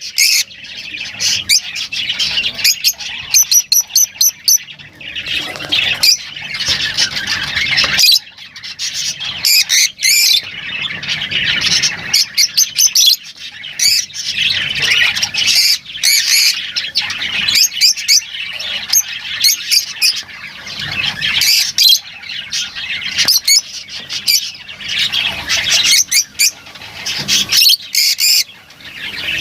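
Lovebirds calling continuously: a dense chatter of shrill squawks and chirps from several birds overlapping, with a quick run of repeated high chirps a few seconds in.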